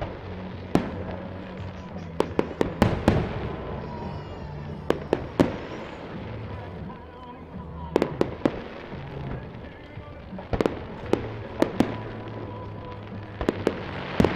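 Fireworks display: aerial shells bursting in a quick, irregular run of sharp bangs, some coming in tight clusters of two or three.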